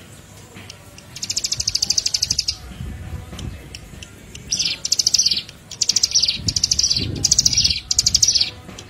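Small songbird's high, rapid trills from a bird-lure recording: one long buzzy trill about a second in, then five shorter trills in quick succession, each dropping slightly at its end.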